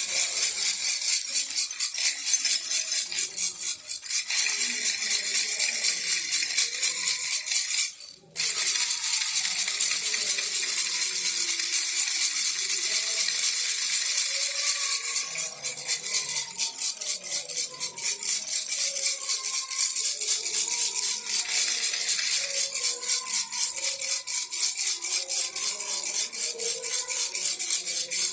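Baby rattle shaken continuously, a fast, dense shaking rattle of small pellets, with a brief pause about eight seconds in.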